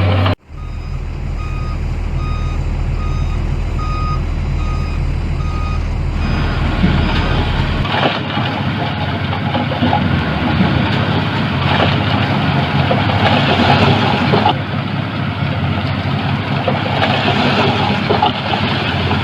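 Reversing alarm on a heavy machine beeping in a steady repeating pattern over its running diesel engine. After about six seconds the beeping gives way to the engine working harder and louder.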